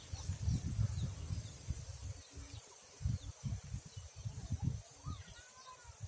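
Wind buffeting the microphone in irregular gusts, over a steady high-pitched insect drone, with a few faint bird chirps near the end.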